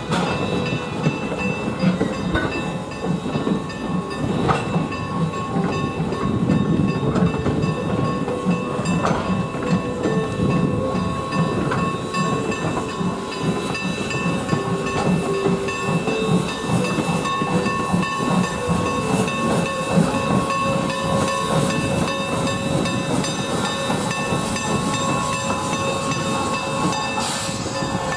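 Strasburg Rail Road passenger coaches rolling slowly past, with a steady rumble, scattered clicks of the wheels on the track, a thin steady high whine and a hiss of steam. Near the end the steam locomotive 475 draws level, and the hiss grows brighter.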